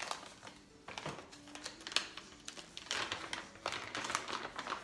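Small beauty-product packaging being handled by hand: a run of sharp clicks and taps, with denser rustling from about three seconds in.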